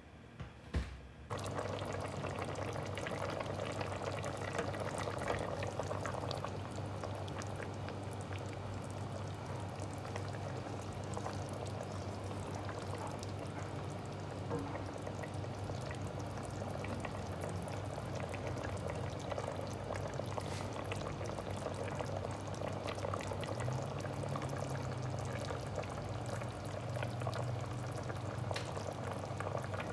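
Curry boiling in a stainless steel pot, with steady bubbling and crackling over a low hum. It starts suddenly about a second in, after a couple of small knocks.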